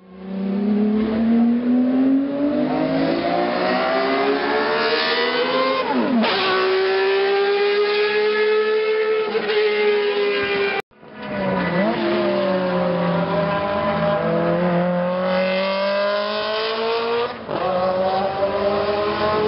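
Racing car engines at full throttle on a circuit straight, the pitch climbing as they accelerate and dropping sharply as each car passes. The sound cuts out for an instant about halfway through, where one pass ends and another begins.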